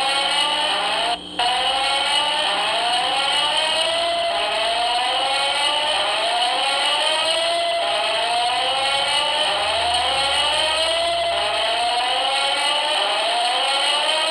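Alarm under test, sounding a loud repeating whoop: a rising sweep about once every second and a quarter, with a brief break about a second in.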